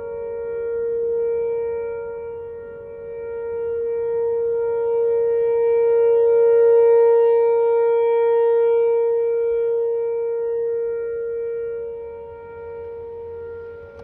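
Outdoor tornado warning siren sounding a test: two steady tones held together without change of pitch, swelling and fading slowly, loudest about seven seconds in.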